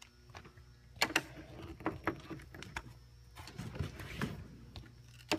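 Scattered light clicks and knocks of an Allen key and metal stage hardware as the corner locks of an IntelliStage folding stage deck are undone by hand.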